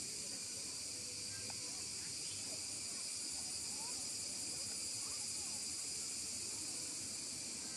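Steady, high-pitched drone of an insect chorus, with a few faint short chirps scattered through it.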